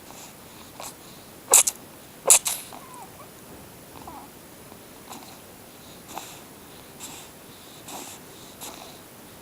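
Kitten sneezing: two sharp sneezes under a second apart about a second and a half in, then a string of fainter little sneezes about once a second.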